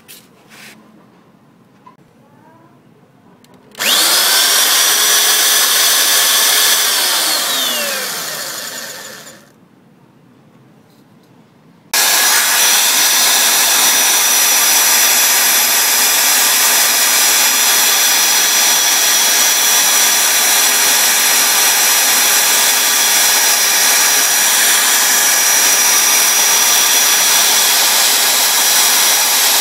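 Electric drill, clamped down as a makeshift lathe, spinning a wooden chopstick in its chuck. It starts about four seconds in and runs at a steady whine, then coasts down with a falling pitch and stops; a couple of seconds later it starts again and runs steadily.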